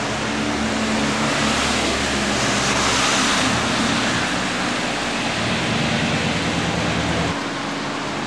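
Street and traffic noise with wind rushing on the camcorder microphone: a steady rush over a low engine hum that drops away suddenly about seven seconds in.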